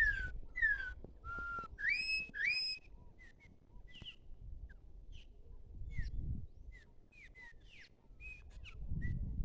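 Songbirds in the trees: loud, clear whistled song notes that glide up and down for about the first three seconds, then a scattered chatter of many short chirps and calls from a flock of chopi blackbirds.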